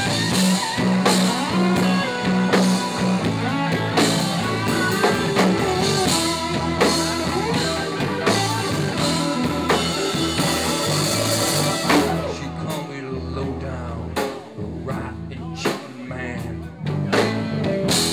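Live blues-rock band playing an instrumental passage without vocals: electric guitars, keyboard and drum kit. The full band sound runs steadily until about twelve seconds in, then drops to sparser, accented hits with short breaks between them.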